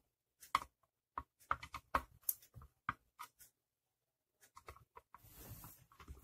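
Sharp plastic clicks and taps as hands handle the plastic housing of a steam iron, about a dozen in the first half, followed by a faint soft rustle near the end.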